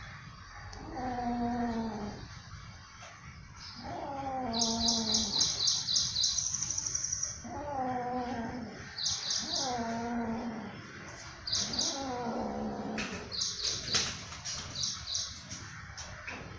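A kitten gives four drawn-out low yowls, each falling slightly in pitch, with a lizard clamped in its mouth. This is the sound typical of a cat guarding freshly caught prey. Quick runs of high chirps sound over and between the yowls.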